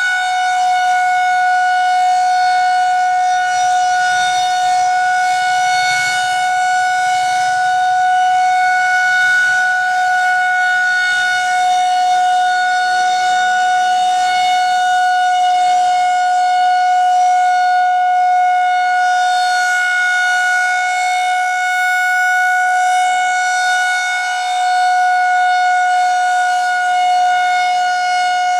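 Federal Signal 2001-130 rotating outdoor warning siren sounding one steady tone for its monthly test, its loudness swelling and fading slowly as the head turns.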